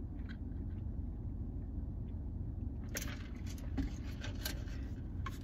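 Steady low hum inside a parked car's cabin, with a few short clicks and crackles from about three seconds in, as sushi is chewed and the plastic tray handled.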